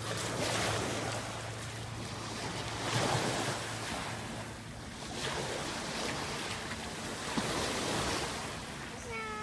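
Small waves washing onto a pebbly beach, the surf swelling and easing every two to three seconds, with some wind on the microphone. A child's voice is heard briefly near the end.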